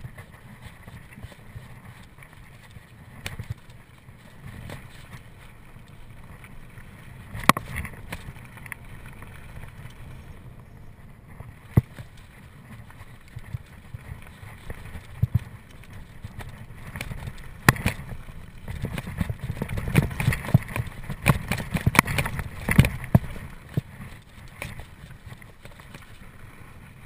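Mountain bike ridden fast over rough singletrack: a steady low rumble under many sharp rattles and knocks from the bike, which come thickest about two-thirds of the way in.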